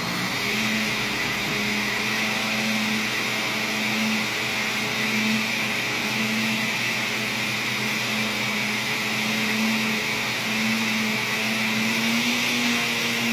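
Countertop blender running steadily at speed, mixing a liquid cake batter of tangerine, eggs, oil and sugar.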